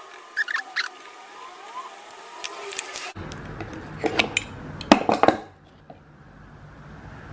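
Small metal tools and parts being handled on a workbench during soldering work: scattered light clicks and clinks, the loudest cluster about five seconds in. About three seconds in the background changes abruptly and a low steady hum comes in.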